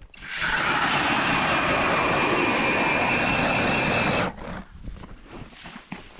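Eskimo E40 electric ice auger drilling through lake ice: a loud, steady motor whine over the grinding of the blades, which cuts off suddenly about four seconds in. Quieter irregular knocks and scraping follow as the auger comes up out of the hole.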